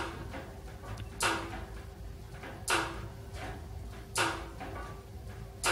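La Nordica Isetta wood stove making a repeating noise: a short whoosh about every second and a half, evenly spaced, over a faint steady hum.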